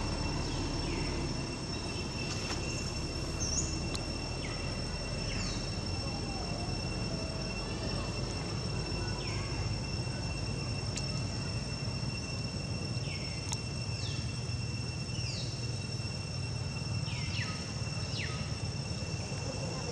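Outdoor ambience of insects droning at a steady high pitch, with short falling chirps every few seconds over a low background rumble.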